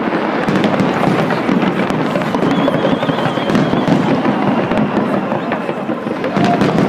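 Fireworks going off in a dense, continuous run of bangs and crackles, with a crowd's voices underneath and a brief warbling high tone in the middle.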